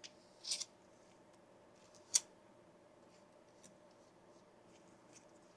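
Quiet handling noises from small plastic parts being worked by hand: a short scrape about half a second in, a single sharp click a little after two seconds, and a few faint ticks.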